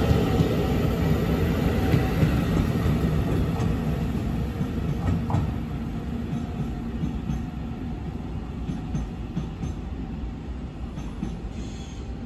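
Taiwan Railway EMU900 electric multiple unit pulling out of the station and running away down the line. Its motor whine and wheel rumble fade steadily as it recedes.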